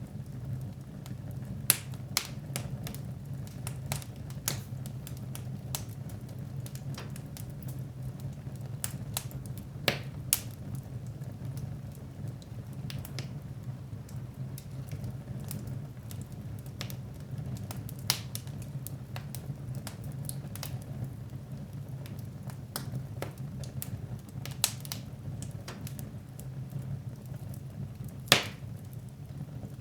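Wood fire crackling in a fireplace: irregular sharp pops and snaps over a steady low rumble of the burning fire. A few louder pops stand out, about two seconds in, twice around ten seconds in, and near the end.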